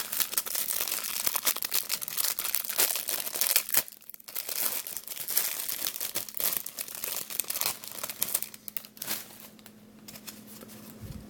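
Wrapper of a trading card pack crinkling and tearing as it is opened by hand, with a short pause about four seconds in; the crinkling dies down about nine seconds in.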